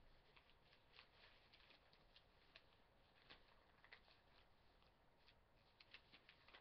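Near silence with faint, irregular rustles and light ticks of paper sheets being handled.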